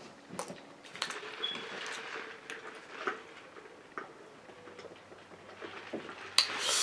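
Faint scattered mouth clicks and smacks of chewing, then sipping a drink through a straw from a fast-food cup.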